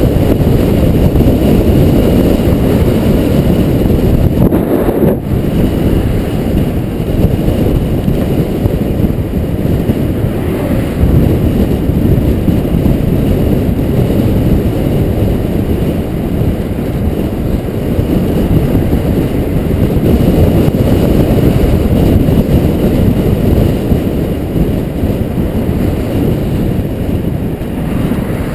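Wind rushing over a moving action camera's microphone on a fast bicycle descent: a loud, steady low rumble with no pitch to it, dipping briefly about five seconds in.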